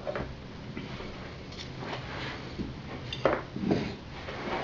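Cutlery clinking on ceramic plates: a few sharp clinks, the two clearest a little over three seconds in, over a steady low hum.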